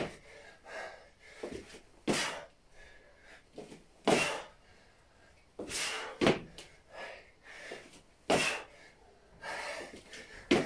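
A man's sharp, forceful exhalations during exercise reps, about one every two seconds, with fainter breaths between.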